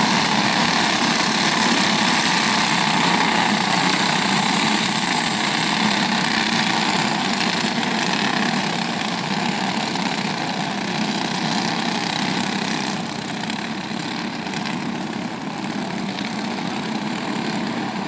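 A pack of racing karts with Briggs & Stratton Animal single-cylinder four-stroke engines droning together at part throttle as they circle under a caution, growing a little fainter in the second half as the pack moves away.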